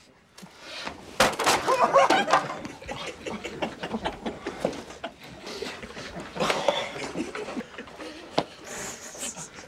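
A wooden chair cracks and breaks under a karate strike about a second in. A loud burst of men's laughter and shouting follows, then stifled laughter and snickering with scattered knocks of wood.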